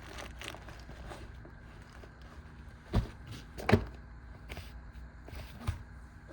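Handling noise from gear being moved about: scattered light clicks and rustles, with two sharper knocks about three seconds in and a smaller one near the end.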